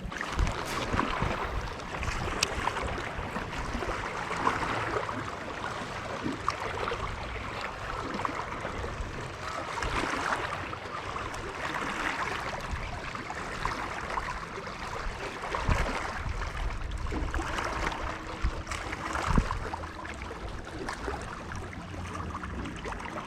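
Small waves lapping against the lake bank, swelling and fading every couple of seconds, with wind rumbling on the microphone.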